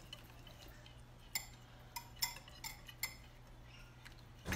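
Whisk stirring a sauce in a glass bowl: faint, irregular clinks of the whisk against the glass.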